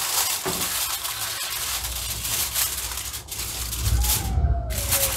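Aluminium foil crinkling and rustling as hands press and fold it down over the rim of a tray.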